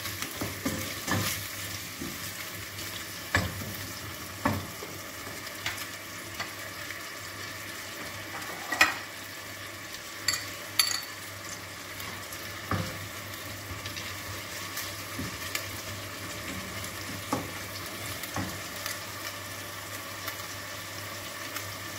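Diced beef and green bell peppers frying in oil in a stainless steel pot: a steady sizzle. A wooden spoon stirs and knocks against the pot in the first few seconds, and sharp clicks and pops are scattered after, the loudest about nine seconds in.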